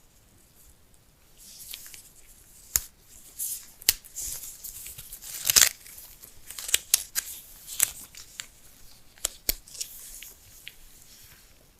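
Phone packaging being torn and handled: paper tearing and rustling, broken by sharp clicks and taps, the loudest about halfway through.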